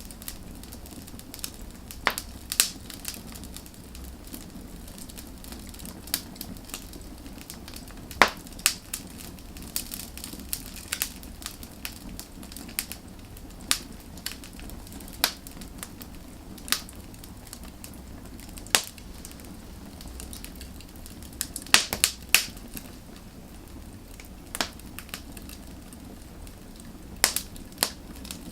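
Firewood burning, with sharp irregular crackles and pops over a steady low hiss of the fire, some pops coming in quick clusters.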